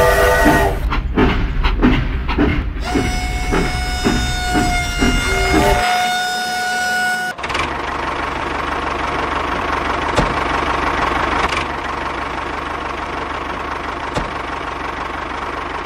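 Toy steam train's electronic sound effects: a rhythmic chugging with horn-like whistle tones, ending in a held whistle note. About seven seconds in this gives way to a steady hum of a small toy tractor motor running.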